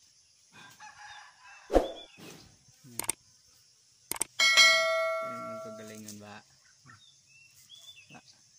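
A sharp thump about two seconds in. Then a subscribe-button sound effect: mouse clicks, followed by a bell-like ding that rings out and fades over about two seconds.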